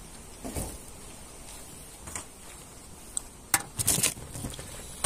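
A few short knocks and clicks of handling: a soft thump about half a second in, then sharp clicks and a brief cluster of rattling knocks near the end, over a steady background hiss.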